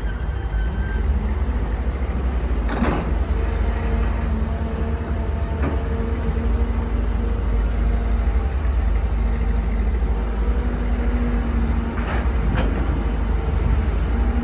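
Kobelco SK250 hydraulic excavator's diesel engine running under load with a steady hydraulic whine as it swings, digs into the earth and swings back to the truck. A few sharp knocks come from the bucket working the soil, one about three seconds in and two close together near the end.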